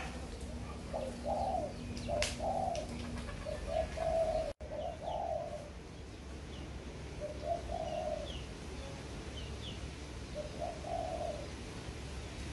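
Caged spotted doves cooing: short phrases of low coos several times over, with faint high chirps of small birds in between.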